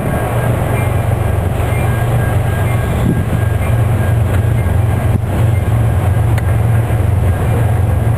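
Diesel-electric locomotive engine running with a steady low drone.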